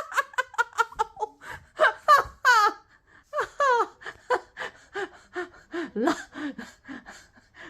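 A person laughing, a long run of short gasping, breathy bursts several times a second.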